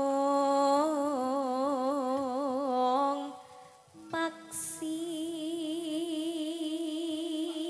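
A Javanese sinden sings solo into a microphone without accompaniment, holding long notes with a wide, slow vibrato. There are two drawn-out phrases, with a brief breath about three seconds in.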